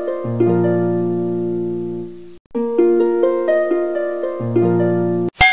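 Intro music: a bright plucked-string melody in quick rising and falling notes over held low bass notes. It breaks off for a moment about two seconds in and then repeats, and a short bright sound effect comes near the end.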